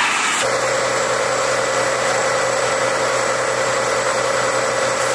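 An engine running steadily at idle: a constant hum with a steady higher drone over it. The sound changes abruptly about half a second in and then holds unchanged.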